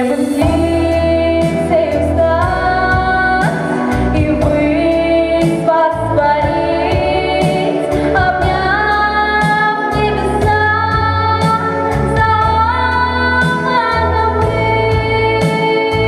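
A young female singer sings solo into a microphone over an instrumental backing track with bass and a steady beat, holding long notes and sliding between them.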